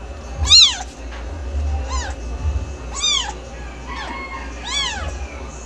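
Domestic cat meowing about five times, each meow rising then falling in pitch; three are loud and two are fainter, the loudest about half a second in.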